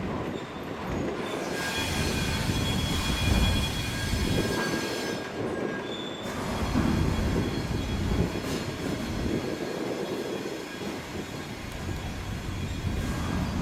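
Railway coaches rolling slowly over a low rumble of wheels on track, with high steady wheel squeal that starts about a second and a half in and lasts several seconds, as the train is drawn off the train ferry.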